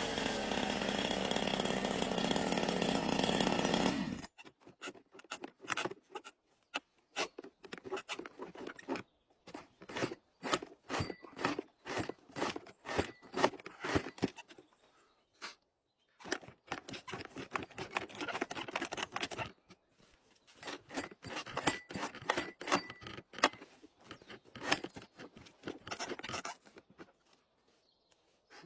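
Chainsaw running at a steady speed for about four seconds, then cutting off suddenly. After that comes a long run of short, sharp cracks and crunches in irregular clusters.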